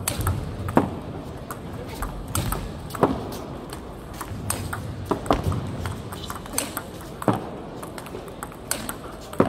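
Table tennis rally: the plastic ball clicks sharply off rubber-covered rackets and bounces on the table, an irregular run of clicks several a second at times, over a steady low background of the hall.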